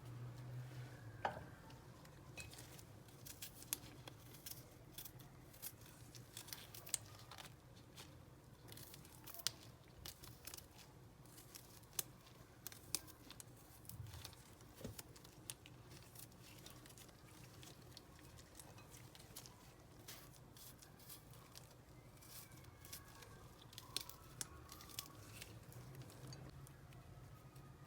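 Faint kitchen handling noises while ingredients are prepared: irregular small clicks, snips and crinkles, thickest in the first half and again near the end, over a faint steady low hum.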